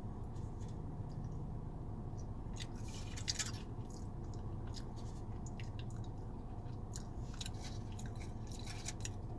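A person chewing a mouthful of burrito close to the microphone: wet, crackly mouth clicks in scattered spells, strongest about three seconds in and again near the end, over a steady low hum.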